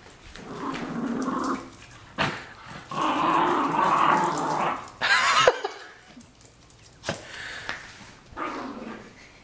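Small dog growling in long rough spells while tugging on a cloth toy in play tug-of-war, with a short, loud bark about five seconds in and shorter growls after it.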